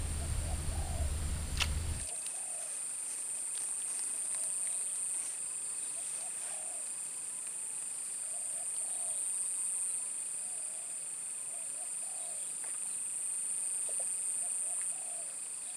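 Insects trilling steadily in one high shrill band, with a second fainter steady insect tone beneath it and faint short calls repeating about every second. A low rumble stops abruptly about two seconds in.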